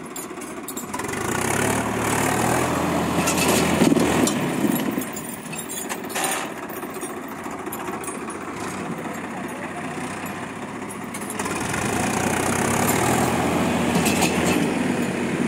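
Diesel tractor engines running, growing louder twice as they take up load, about a second in and again after about eleven seconds, then easing back between.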